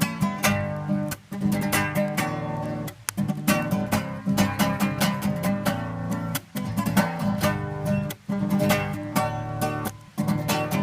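Acoustic guitar strumming chords, an instrumental break between sung verses, with short pauses every couple of seconds.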